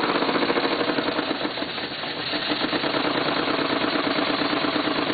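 PM Research Model 3 model steam engine running fast on live steam: a rapid, even chuffing over a steady hiss of steam leaking from the engine, above all its main valve. The beat dips briefly about two seconds in, then runs on evenly.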